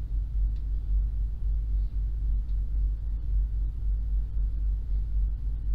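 Steady low rumble of background noise, with a few faint ticks.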